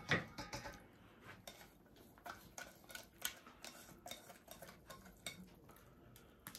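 Silicone whisk scraping and knocking against a stainless-steel saucepan as thick toffee-and-walnut mixture is scraped out onto corn sticks in a steel bowl: light, irregular clicks and taps, the loudest right at the start.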